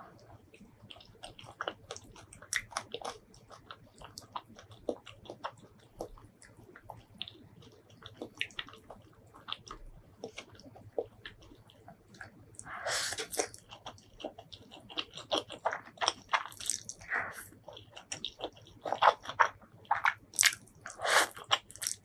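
Close-miked eating: steady chewing with many small wet mouth clicks. Spicy fire chicken noodles are slurped in a few times, the louder slurps coming in the second half.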